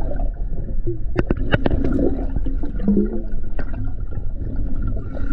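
Water heard by a submerged camera: a steady low rumble with gurgling, and a quick run of sharp clicks about a second in.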